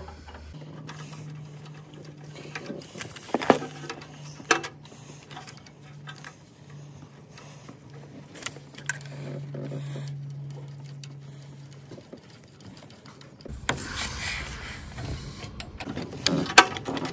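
Scattered faint clicks and knocks of a metal bracket and wiring clips being handled and refitted by hand in a car's engine bay, over a faint steady low hum.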